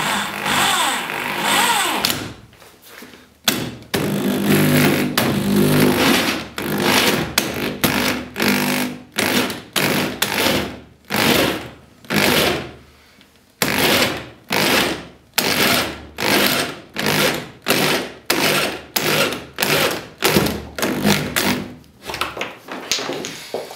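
Cordless drill turning a hole saw into the polyethylene hull of a kayak, run steadily for about two seconds and then in short bursts roughly once a second, each starting sharply and tailing off, as the saw cuts through the plastic.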